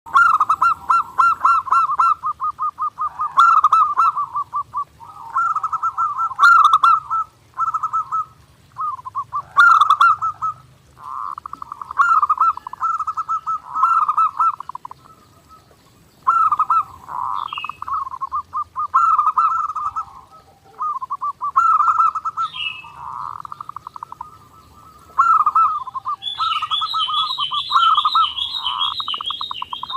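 Zebra dove (perkutut) cooing in fast, rhythmic phrases, one after another with short pauses between them. A higher, quicker chirping joins near the end.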